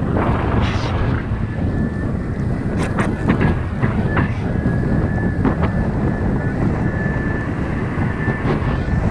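Wind buffeting the microphone of a camera on a windsurf rig, over water rushing and slapping against the board as it sails through chop. A few sharper splashes come about three and four seconds in, and a faint thin whistle runs through most of it.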